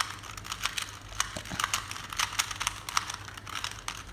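Rubik's cube being scrambled by hand: an irregular run of sharp plastic clicks as the layers are turned, several a second.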